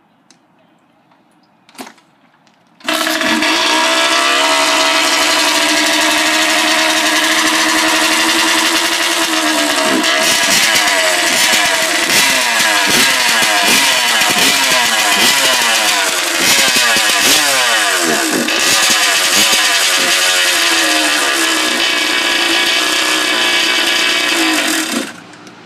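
Kawasaki KX100 two-stroke single-cylinder dirt bike engine, run without a silencer, catches suddenly about three seconds in and runs loudly, then is revved up and down rapidly and repeatedly before it dies out near the end. It bogs out, which the owner puts down to a gummed-up carburettor.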